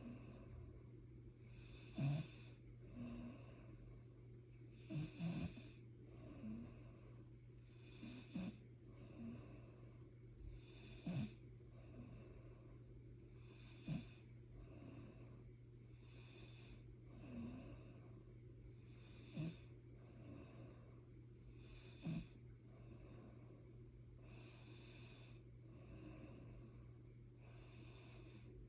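A sleeper snoring softly, with raspy breaths about every second or so. Short sharp snorts or clicks stand out here and there, and a steady low hum runs underneath.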